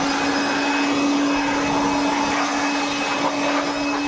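A high-speed electric motor, like that of a power tool or blower, running steadily with a constant whine over a rushing hiss.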